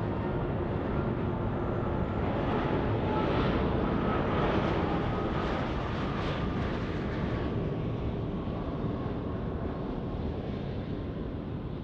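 Airbus A330 jet airliner on final approach with gear down, its engines making a steady rumble with faint whining tones. The sound swells to its loudest around the middle as the jet passes, then slowly fades.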